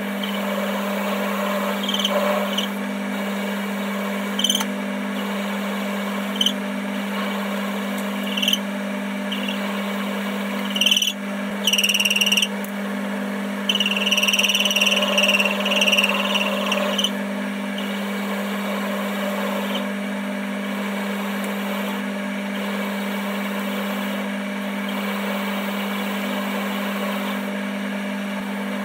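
Metal lathe running with a steady motor hum while a cutting tool works the bar stock, the cut giving short scraping bursts every couple of seconds and a longer stretch about halfway through.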